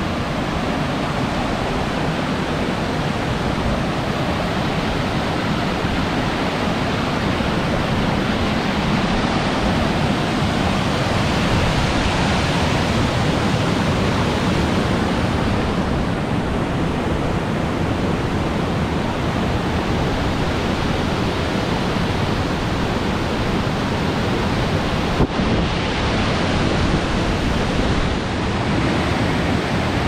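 Rushing water of a rocky stream and small waterfall, a steady even roar, with a single short click near the end.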